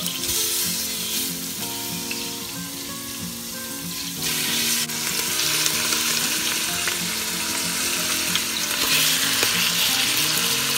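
Chunks of wild pig meat sizzling in hot olive oil and butter in an Instant Pot Ultra on its sauté setting as they are dropped in by hand; the sizzle gets louder about four seconds in as more meat hits the pan.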